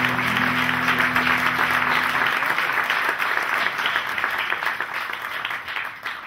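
Audience applauding, while the acoustic guitars' last chord rings on and dies away about two seconds in. The applause fades out near the end.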